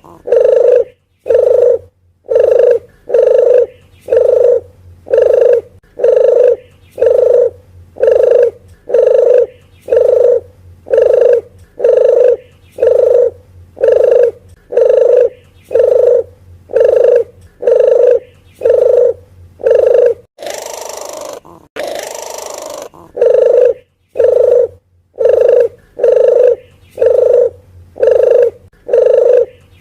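Puter geni dove lure call: short, low coos repeated steadily about once a second. About two-thirds of the way through, a brief stretch of hiss breaks the series before the coos resume.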